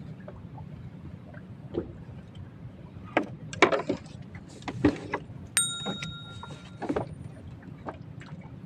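Scattered knocks and clicks of handling, with a single bright ding of a small metal bell about five and a half seconds in that rings on for about a second.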